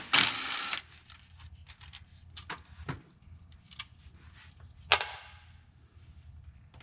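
Hand tools on transmission valve body bolts: a brief loud rasp at the start, then scattered sharp metallic clicks and clinks, the loudest about five seconds in.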